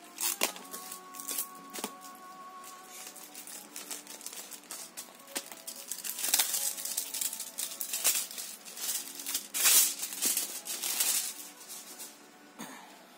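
Plastic packaging of table-tennis rubber sheets crinkling and rustling as it is handled, in bursts that are loudest about halfway through and again near the two-thirds mark, with background music.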